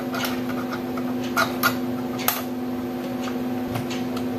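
Screwdriver turning in the small screw that holds a laptop SSD in its bay: a few light, irregular clicks and ticks, over a steady hum.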